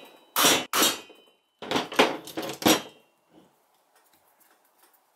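A soft-faced mallet tapping a pin into a Remington 870 receiver: two knocks, then a quicker run of about five, stopping about three seconds in. The pin is stuck and only goes through under the blows.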